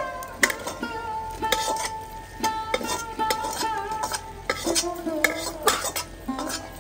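A metal spoon stirring and scraping in a cooking pan, with irregular clinks and light sizzling, over instrumental background music.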